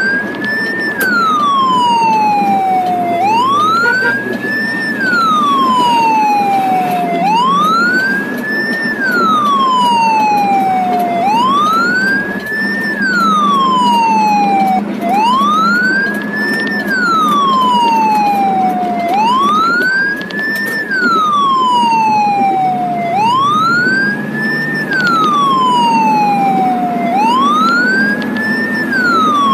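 Ambulance siren on a slow wail: each cycle rises quickly and then slides slowly back down, repeating about every four seconds. It is heard from inside the moving ambulance, over a steady rumble of engine and road.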